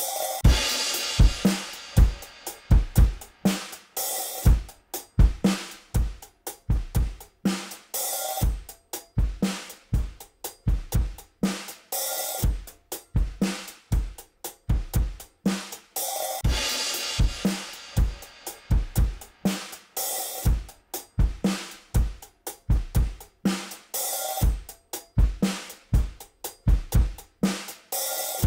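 Recorded drum kit playing a steady groove on the mix bus: a regular kick and snare pattern with hi-hat. A cymbal rings out near the start and again about halfway through.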